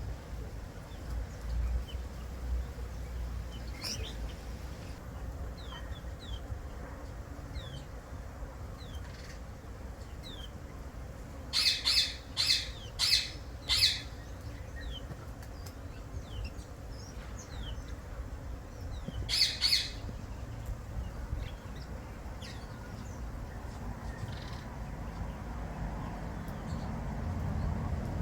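Garden birds calling: a run of four loud squawks in quick succession about halfway through and two more a few seconds later, over faint scattered chirps of small birds.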